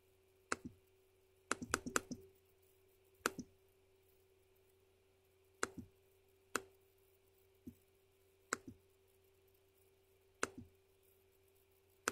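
Scattered clicks of a computer mouse and keyboard: a quick flurry about one and a half seconds in, then single clicks every second or two, over a faint steady hum.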